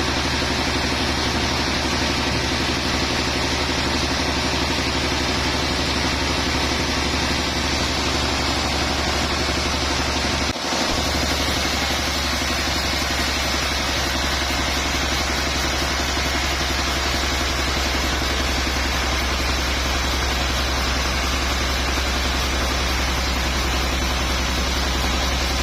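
Sawmill machinery running steadily with a deep, constant engine hum, broken once for an instant about ten seconds in.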